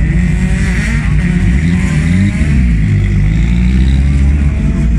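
Lancia Delta S4 race car's engine running loud and lumpy while stationary, its pitch rising and falling slightly a few times around the middle.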